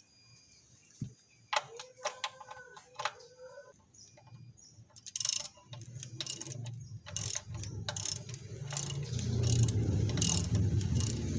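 Ratchet wrench with a 17 mm socket clicking in uneven strokes as the oil drain plug is loosened. A low rumble grows near the end and cuts off suddenly.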